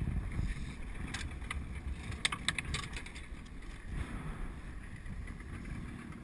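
Wind buffeting the microphone on an open boat, a steady low rumble, with a few sharp clicks about a second in and a quick run of them about two and a half seconds in.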